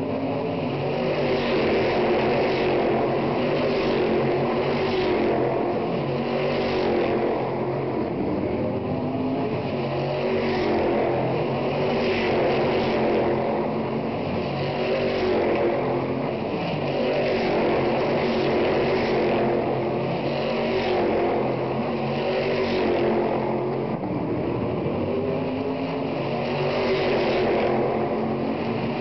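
Stock Car Brasil V8 race cars running at racing speed around the circuit: a continuous engine drone that swells and fades every couple of seconds as cars accelerate, shift and pass.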